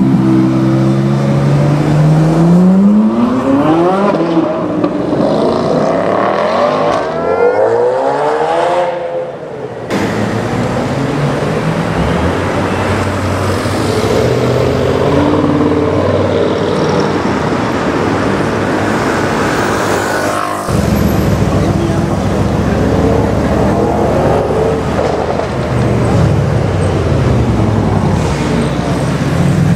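Camouflage-wrapped Ferrari 458 Italia's V8 revving up through the gears as it accelerates away, its pitch climbing again and again. After a sudden cut, a tuned Audi RS6 C7's twin-turbo V8 with Milltek exhaust runs steadily, then revs up again near the end.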